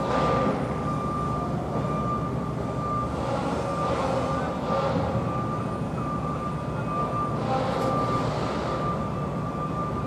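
Construction-site machinery running with a steady rumble, under a high warning-alarm tone held through most of it. The hiss rises briefly twice.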